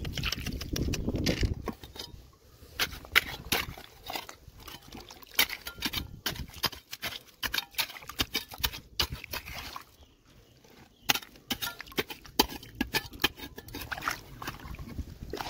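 Scattered, irregular sharp clicks and knocks of stones and rock fragments being handled and dug at, with a low rumble in the first couple of seconds.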